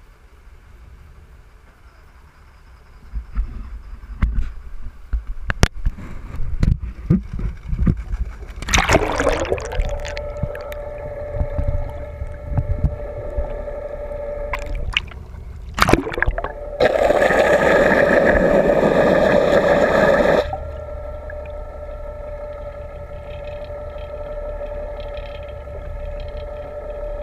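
Knocks and handling noise, then a splash as the camera goes into the water about nine seconds in. From then on the boat's engine and propeller are heard under water as a steady whine, with a loud rush of water over the microphone for about three and a half seconds after the middle.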